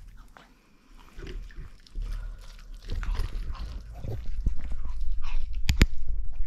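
Chihuahua biting, chewing and crunching a piece of cooked chicken, with wet mouth noises, irregular crunches and two sharp clicks near the end.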